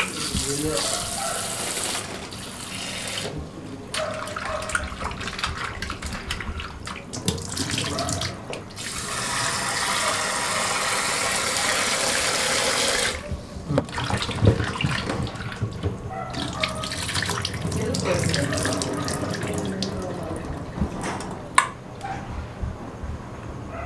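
Tap water running into a stainless steel bowl of raw chicken pieces in a steel sink, splashing as the pieces are rinsed and turned by hand. The flow breaks off and resumes several times, running steadiest for a few seconds in the middle, and a sharp knock sounds near the end.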